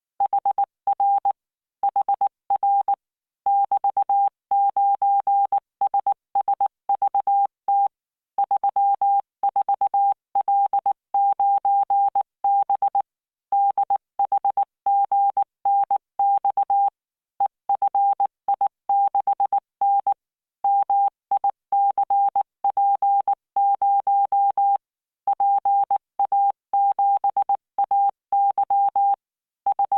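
Morse code practice tone from the LearningMorse training software: a single steady beep keyed on and off in dots and dashes at 19 words per minute, with standard gaps between letters and words.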